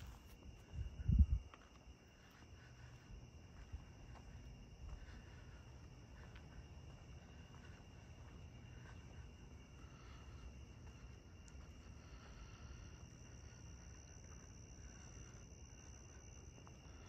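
Crickets trilling steadily at night in two high, unbroken tones; the higher one grows louder near the end. Under them is a faint low rumble, with a brief louder low rumble about a second in.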